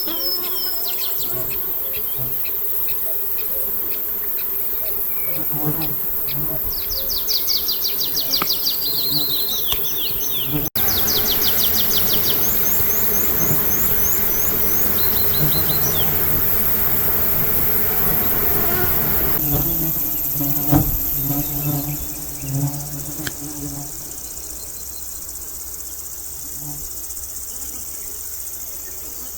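Summer outdoor ambience: insects buzzing close by, over a steady high chirring of insects. A songbird sings short, fast trilled phrases several times in the first half.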